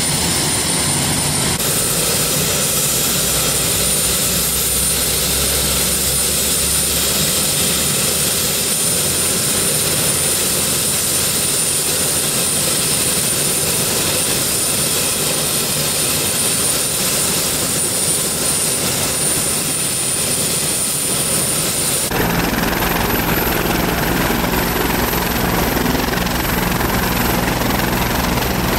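Bell 430 twin-turbine helicopter running on the ground: a steady turbine roar with a constant high whine. About three-quarters of the way through the sound changes abruptly: the whine drops away and a low rotor beat comes forward.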